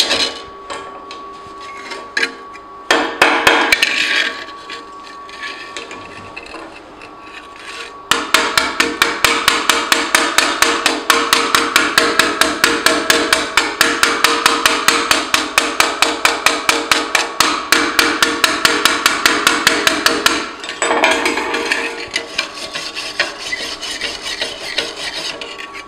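A pointed welder's chipping hammer taps rapidly and evenly on a fresh aluminium weld bead laid onto steel plate, knocking off the flux slag, several light strikes a second through the middle. There is shorter scraping and scrubbing before and after it.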